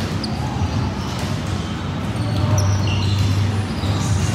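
Indoor volleyball play: sneakers squeaking on the court in short high chirps, a ball thudding, and voices, over a steady low hum.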